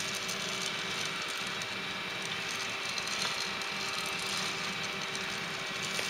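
Gene Cafe home coffee roaster running: a steady whir from its motor and hot-air fan as the drum tumbles the beans, with faint scattered pops of the beans going through first crack.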